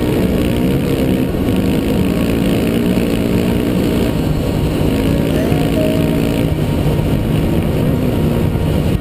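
Dirt bike engine running hard at speed, its pitch rising and dropping with the throttle and gear changes, over a constant rush of wind and riding noise on the helmet camera.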